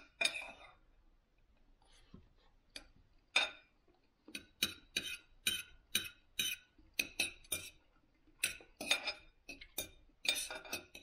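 Metal cutlery clinking and scraping against a dinner plate while a meal is cut up and eaten. A string of sharp clicks: sparse at first, then about two a second from around four seconds in.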